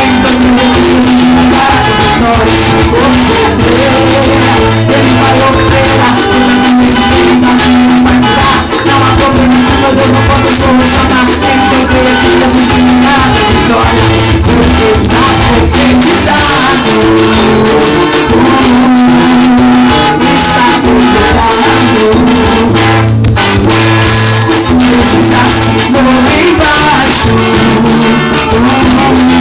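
A band playing an upbeat gospel praise song, with shaken hand percussion keeping time.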